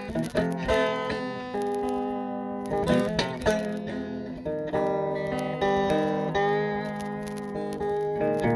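Acoustic guitar playing chords, the notes picked and left to ring, with a few strums.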